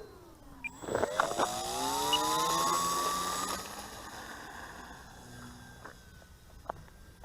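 Hobby King Hummer RC plane's electric motor and propeller whining, the pitch rising steadily as the throttle opens up after a knock about a second in, then fading away.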